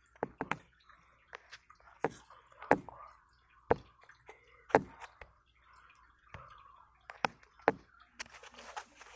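Irregular sharp clicks and taps, about one a second, from fingers handling a phone as it is zoomed and moved.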